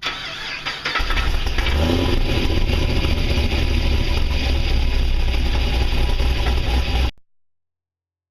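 Cammed Pontiac G8 V8 with Kooks long-tube headers starting up, catching about a second in, then idling with a loud, steady low exhaust rumble that cuts off suddenly near the end.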